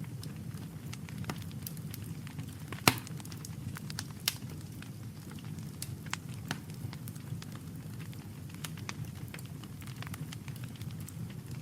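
Campfire crackling, with scattered small snaps over a steady low rumble and a loud, sharp pop about three seconds in, another a second or so later.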